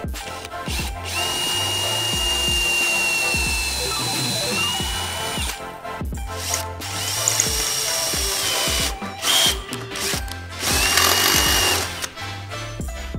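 Cordless drill with a twist bit drilling through the metal mounting tabs of a radiator, running in three bursts with a steady whine, the first lasting about four seconds.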